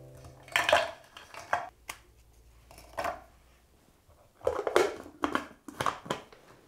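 Hard chocolate biscuits dropped into a plastic chopper bowl, clattering against the plastic in the first second or so and again about three seconds in. Then the bowl's plastic lid is fitted and pressed down, giving a quick run of knocks and clicks about four and a half to six seconds in.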